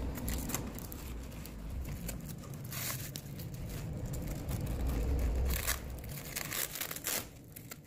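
Rubbing and rustling handling noise from hands working the foam grip sleeve on a brush cutter's shaft and tucking its black cable under it, with a few short sharper scrapes.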